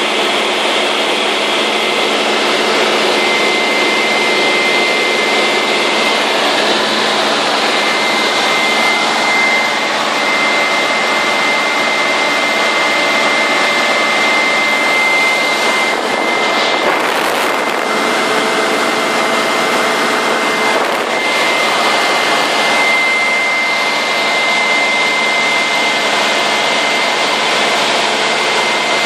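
Cabin noise of a single-engine high-wing training aeroplane in flight: the piston engine and propeller running steadily, with a thin steady high whistle over the drone.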